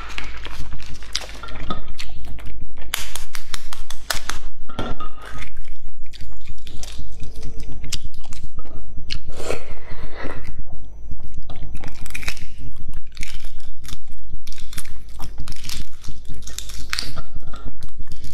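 Eggshells crackling and clicking as boiled eggs are peeled by hand, mixed with biting and chewing of egg. The crackles come in quick, irregular runs throughout, over a steady low hum.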